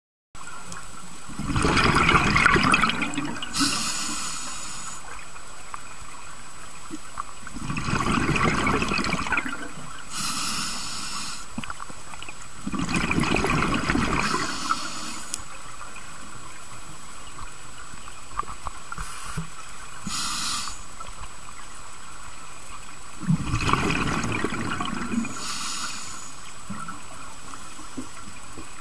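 Scuba diver breathing through a regulator underwater: a short hiss on each inhalation, then a longer gurgling rush of exhaled bubbles, repeated over several breaths.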